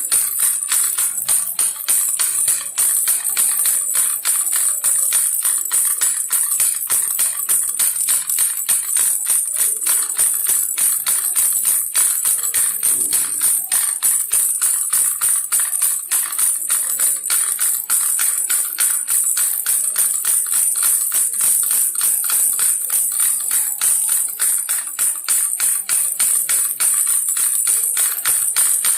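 Baby's toy rattle shaken steadily, a fast, even stream of bright jingly clicks.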